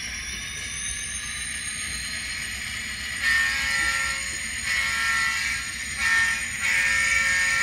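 ESU sound decoders in Atlas N scale diesel locomotives, heard through their tiny speakers: diesel engine sound with a high whine, then the horn sounding four blasts from about three seconds in, the last the longest.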